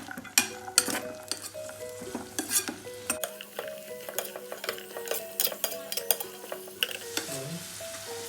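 Cashews, almonds and raisins frying in a little oil in a small pan, sizzling softly, while a spoon stirs them with frequent clicks and scrapes against the pan.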